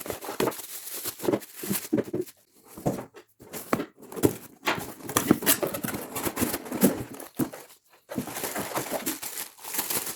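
Product packaging being opened and handled: irregular rustling and handling noise in short bursts, stopping and starting with brief pauses.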